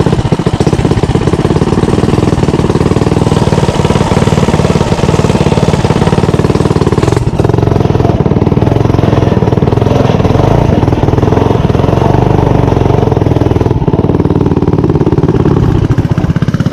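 Mini bike's small single-cylinder engine running close to the microphone, a loud, steady, rapid firing beat.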